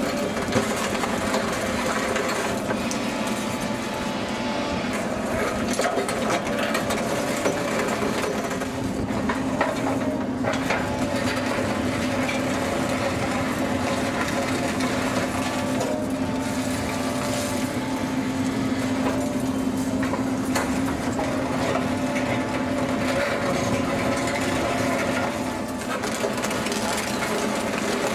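Demarec DSP-30 static pulveriser on an excavator crushing concrete rubble: a continuous crunching and cracking of concrete between the jaws over the steady drone of the excavator's engine and hydraulics. A steady hum comes in about nine seconds in and fades out around twenty seconds.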